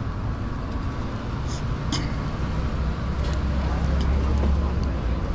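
Road traffic going by: a steady low rumble that swells about three seconds in as a vehicle passes, with a couple of sharp clicks between one and two seconds in.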